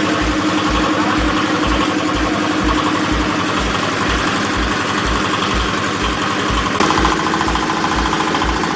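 Diesel engine powering a hydraulic baling press, running steadily with a low thud about twice a second. About seven seconds in, its tone steps up and grows stronger.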